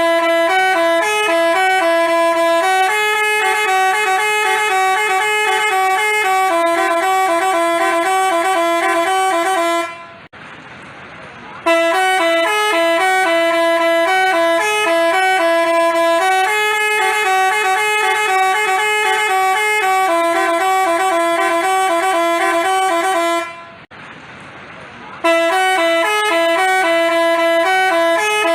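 Basuri telolet multi-tone bus horn playing its melody, a run of notes stepping between a few pitches. The tune stops twice for a pause of under two seconds, then starts again.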